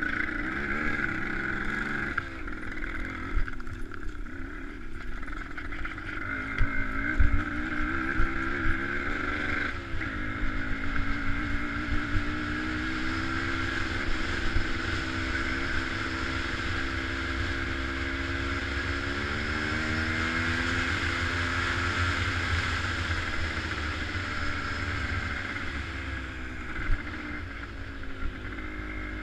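An engine running continuously, its pitch rising and falling as it speeds up and slows, over a low rumble.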